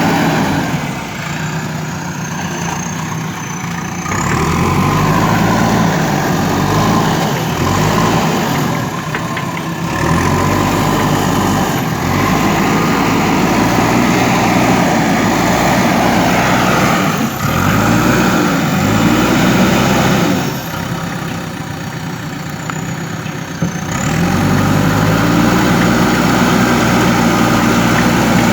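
JCB backhoe loader's diesel engine running, its speed rising and falling again and again as the hydraulics take load. It drops back to a lower, quieter run twice: shortly after the start and again about three-quarters of the way through.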